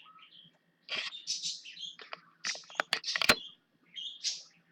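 A bird chirping in short high calls, with a few sharp clicks among them.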